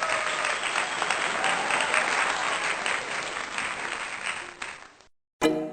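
Crowd applause that fades out and stops about five seconds in, followed near the end by a struck, ringing chime note.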